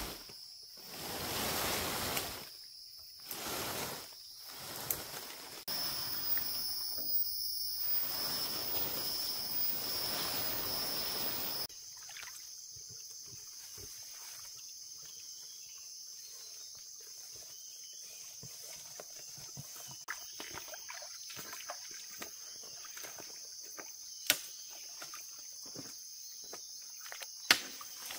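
Forest insects chirring steadily. Over the first twelve seconds come louder stretches of broad noise from work close by, which stop abruptly. Two sharp clicks sound near the end.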